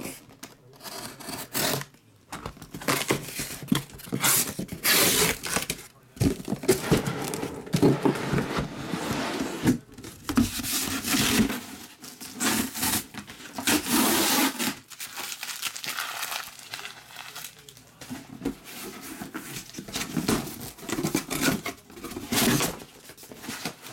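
Packing tape being cut and torn off a cardboard shipping case, and the cardboard rustling and scraping as the case is opened. The bursts of tearing and rubbing are irregular and keep coming throughout.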